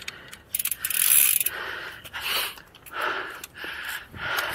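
Mountain bike drivetrain clicking and rattling in uneven bursts, chain and freewheel ratchet, as the bike is dealt with after a dropped chain.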